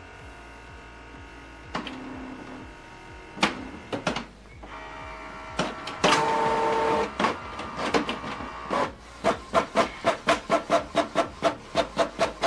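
Canon PIXMA TS7650i inkjet all-in-one printer copying a page in black and white. First the scanner runs with a steady motor hum and a few clicks. About six seconds in comes a louder steady whir. From about eight seconds there are rapid, even clacks, about four a second, as the copy prints and feeds out.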